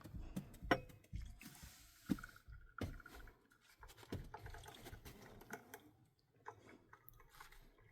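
Scattered light knocks and clatter of objects being handled, with a brief hiss about a second and a half in.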